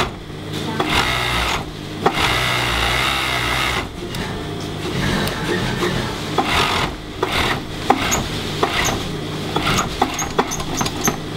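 Cylinder-bed industrial sewing machine stitching a T-shirt, running in bursts of a second or two with short pauses and clicks between them as the fabric is repositioned. A steady low hum sits underneath.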